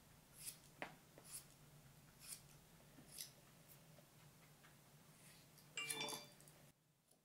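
Hairdressing scissors snipping through wet hair, a handful of soft, short snips spread out, with a brief louder sound about six seconds in.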